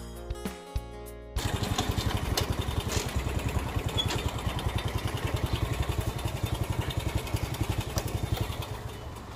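Background music for about the first second, then an abrupt switch to a motor scooter's engine running at low speed with a fast, even pulse, quietening near the end.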